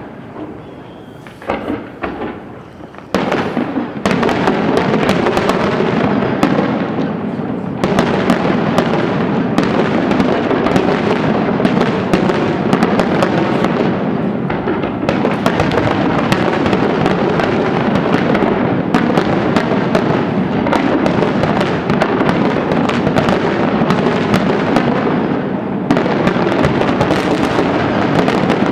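Fireworks display: a few separate bangs in the first three seconds, then a dense, continuous barrage of rapid bangs and pops that keeps up to the end.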